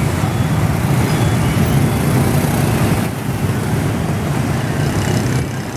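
Dense peak-hour traffic of mopeds and small motorbikes passing close by, a steady mass of small engines running. It eases slightly about halfway through.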